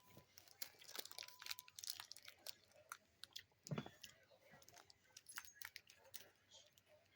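A person chewing a chewy granola bar close to the microphone: soft, irregular mouth clicks and crunches, with one louder thump about halfway through.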